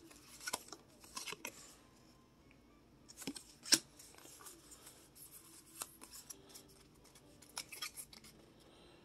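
Pokémon trading cards being handled: faint, scattered clicks and short sliding rustles as the cards come out of an opened foil booster pack and are thumbed through one by one, with a sharper click a little before four seconds in.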